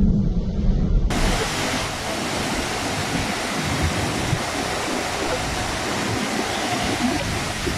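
A low rumble that cuts off about a second in, then the steady, even hiss of a heavy storm's driving rain and wind.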